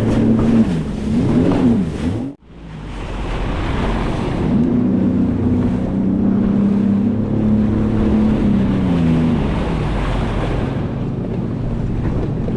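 Sea-Doo FishPro Sport 170 jet ski's Rotax three-cylinder engine running under way, its pitch rising and falling in the first couple of seconds, then holding steady before easing near the end, with wind buffeting the microphone and water rushing past. The sound cuts out abruptly for an instant about two seconds in.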